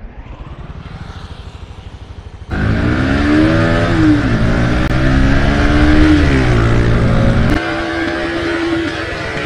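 Bajaj Pulsar NS125 single-cylinder engine idling, then revved hard at about two and a half seconds as the bike launches. Its pitch climbs, drops sharply with an upshift and climbs again, and near the end it settles to a lower, steadier note. A rush of wind noise comes in once the bike is moving.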